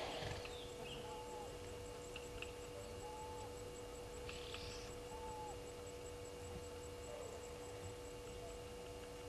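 Steady electrical hum on the outdoor microphone, with a short whistled bird note repeated about every two seconds and a brief rustle about four seconds in.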